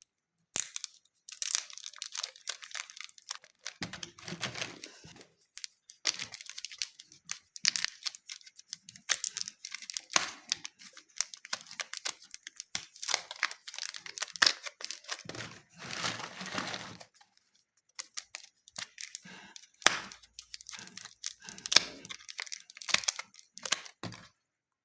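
Slime and clay being squeezed and pulled apart by hand, giving dense bursts of crackling, crinkling and tearing sounds with short pauses between squeezes.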